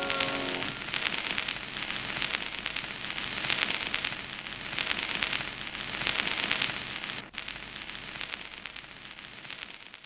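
Audience applauding, a dense crackle of clapping that swells and ebbs in waves and dies away near the end. The last held note of the song fades out just as it begins.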